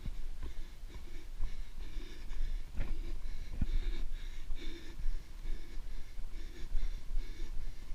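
A trail runner's hard, rhythmic breathing while running, about two breaths a second, with occasional thuds of footfalls and handling on the trail.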